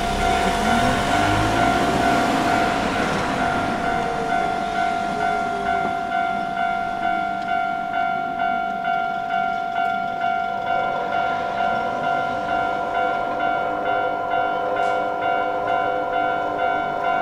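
Japanese level-crossing warning bell ringing in a steady, even pulse. A train passes over the crossing in the first few seconds, its rushing wheel noise and rising motor whine fading out after about four seconds while the bell keeps ringing.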